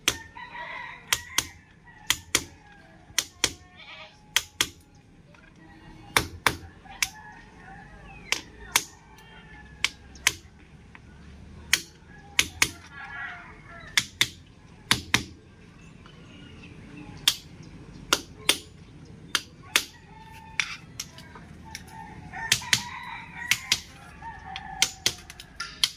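Sharp, irregular taps of a hand tool on ceramic wall tiles, about one or two a second, as the tiles are set into place. Chickens call in the background three times: near the start, about halfway, and near the end.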